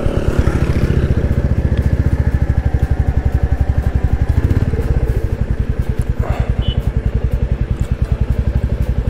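Royal Enfield motorcycle engine idling, an even, rapid, steady thumping.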